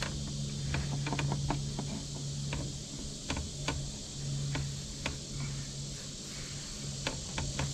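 A brush working wood stain over wooden deck boards, giving scattered light clicks and taps at an irregular pace, over a steady low hum and a steady insect drone.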